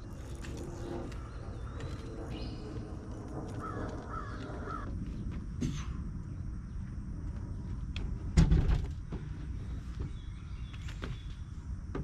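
A plastic kayak is lifted and set onto a car's roof rack, with one heavy thump about eight seconds in as it lands on the rack. A bird calls a few times around four seconds in.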